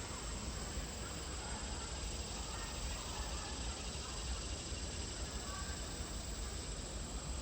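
Steady outdoor background hiss with a constant low rumble underneath and no distinct events.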